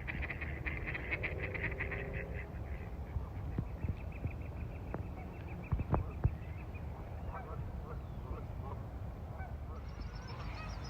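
Canada geese honking amid other bird calls: a fast trilling call for the first couple of seconds and a higher one near the end. A steady low rumble runs underneath, with a few bumps about six seconds in.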